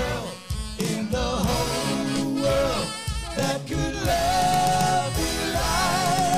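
Live soul band playing, with a singer's voice over the bass and guitar; a long held note in the second half.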